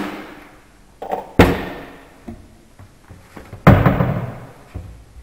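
Wooden storage cupboard doors being swung shut: two loud thuds, about a second and a half in and again near four seconds in.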